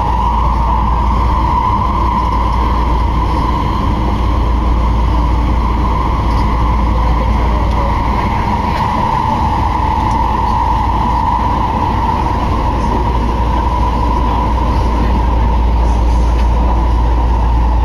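Steady running noise inside a Nagahori Tsurumi-ryokuchi Line linear-motor subway car travelling between stations: a deep rumble under a constant mid-pitched rushing, growing slightly louder near the end.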